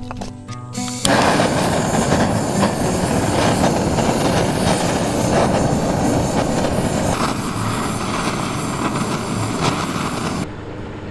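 Driftwood fire burning in a folding steel fire pit: a loud, dense crackling and rush of flames that starts abruptly about a second in and drops away shortly before the end.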